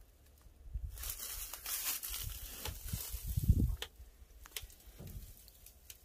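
Crinkling and rustling of dry grass and brush, with a few low thumps, the loudest about three and a half seconds in, and a few sharp clicks near the end.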